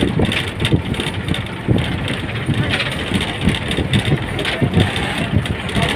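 A vehicle driving along a road, heard from inside: an uneven, continuous rumble with frequent short knocks.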